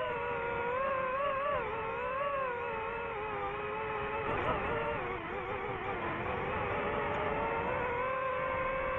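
DJI FPV quadcopter's four brushless motors and propellers whining. The pitch wavers up and down with the throttle, drops around the middle, then settles into a steadier tone near the end.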